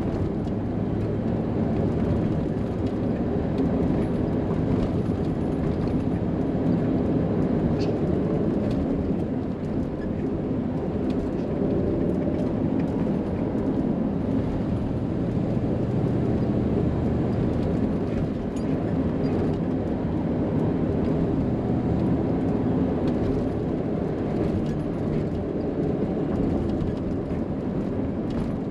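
Cab interior noise of a 1989 Chevrolet Scottsdale pickup being driven: a steady blend of engine, road and wind noise.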